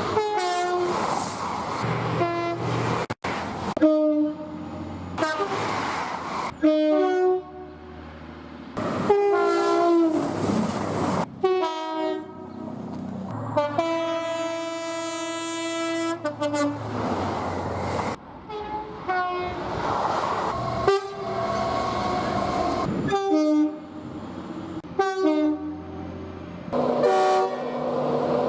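A rapid string of British trains sounding their two-tone horns, clip after clip with abrupt cuts; most soundings are two notes one after the other. One long, loud held blast comes about halfway through, and the rumble of trains passing fills the gaps between horns.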